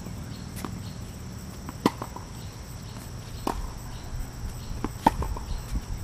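Tennis ball struck back and forth by rackets and bouncing on a hard court in a rally: single sharp pops about every one and a half seconds, the loudest about two seconds in, over a steady high-pitched background drone.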